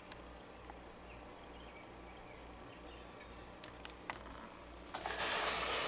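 Quiet room tone with a few faint clicks, then, about five seconds in, a short rustle of handling noise lasting about a second.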